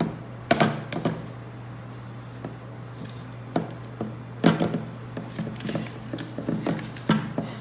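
A mixing utensil knocking and scraping against a pot while thick slime is stirred after the borax activator goes in: a string of irregular taps and clicks.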